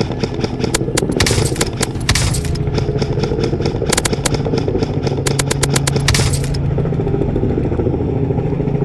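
Bursts of rapid airsoft rifle fire, about ten shots a second in the longest run, stopping about six and a half seconds in, over a steady droning music track.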